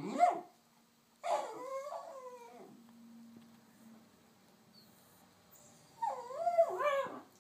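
A small dog complaining in howl-whines: a short whine at the start, a longer wavering howl about a second in, and another wavering howl-whine near the end.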